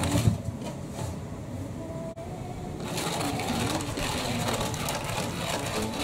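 Electronic cat toy's small motor whirring steadily as it sweeps a mouse-tail wand around under its fabric skirt, with a sharp thump near the start.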